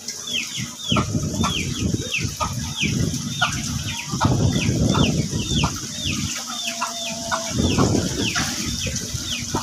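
A bird's short, high chirps, each falling in pitch, repeated about two a second, over bursts of low rumbling noise.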